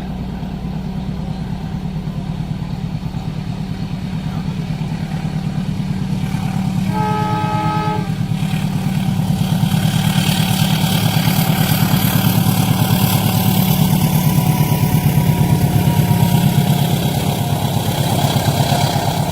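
Diesel train approaching and passing a level crossing: a low engine rumble that grows steadily louder, one horn blast of about a second some seven seconds in, then the hiss and rattle of wheels on the rails building up as the train goes by.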